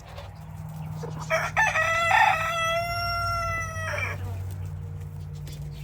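A rooster crowing once: a long call of nearly three seconds that holds its pitch and drops at the end, with chickens clucking and a steady low hum underneath.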